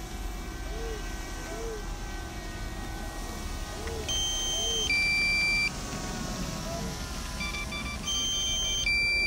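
Electronic two-tone warning beeps, a higher tone followed by a lower one, sounded twice about four seconds apart over a steady low background noise: the alert of a DJI Mavic Air's remote controller as the drone's battery runs out.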